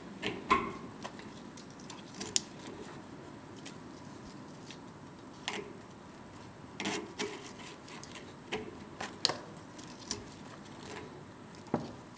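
Hand-knitting a lobster-trap head from nylon twine with a netting needle and mesh board: irregular small clicks and taps of the needle and board, with the twine being pulled tight into knots.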